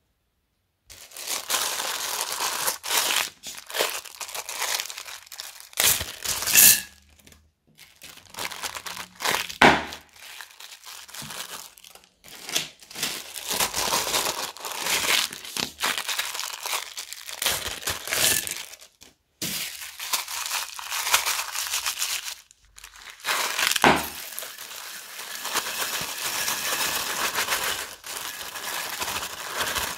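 Small clear plastic bags crinkling and rustling in the hands as they are opened and emptied of beads, in several stretches broken by short pauses, with a few sharper, louder crackles.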